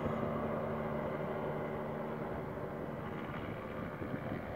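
Aerolite 103 ultralight's engine and propeller droning steadily as the plane climbs away after takeoff, fading slightly.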